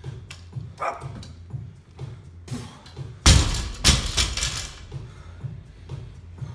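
Loaded barbell with bumper plates dropped onto a rubber gym floor: a heavy thud about three seconds in, then a second one half a second later as it bounces. Background music with a steady beat runs underneath.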